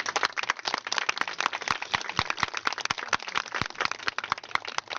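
Crowd applauding: a dense, uneven patter of hand claps.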